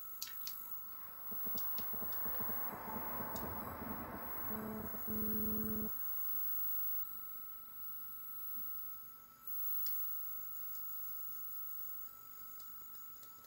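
LED TV's speaker giving out static hiss from the cable input while it has no channel, then a short steady tone for about a second and a half that cuts off suddenly; a faint steady high-pitched whine runs underneath.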